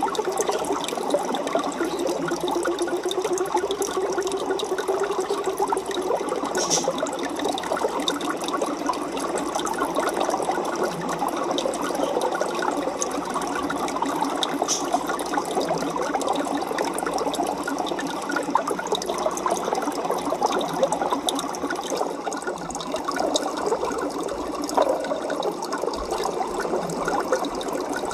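Aquarium water bubbling and trickling steadily, a dense crackle of small bubbles at an even level throughout.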